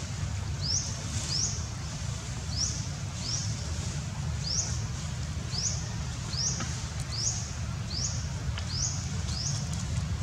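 High, thin chirps repeated about once a second, sometimes in quick pairs, each a quick upward sweep, over a steady low rumble.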